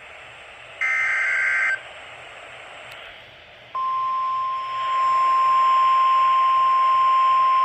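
NOAA Weather Radio Emergency Alert System signal over radio hiss. One burst of SAME digital header data, a buzzy warbling squeal about a second long, ends just under two seconds in. Then the steady 1050 Hz warning alert tone starts nearly four seconds in and holds; it announces a tornado warning.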